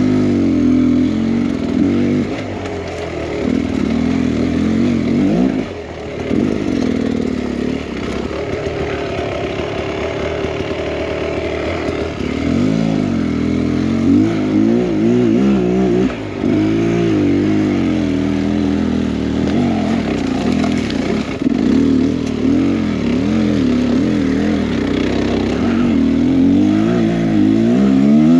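Two-stroke single-cylinder engine of a Beta X Trainer 300 dirt bike being ridden, its pitch rising and falling constantly with the throttle. The pitch holds steadier for several seconds about a quarter of the way in, then goes back to quick rises and falls.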